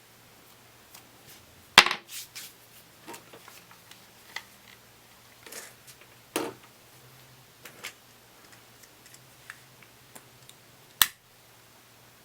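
Objects being handled and set down: irregular light taps and knocks, with a sharp knock about two seconds in and another near the end, over a faint steady hum.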